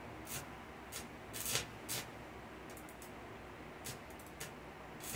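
Short, irregular sputtering crackles of an electric arc as a rod is struck against a motorbike's broken steel footrest, from a homemade welder built with a water-and-salt-filled pipe. About seven crackles come unevenly over five seconds, the loudest about a second and a half in.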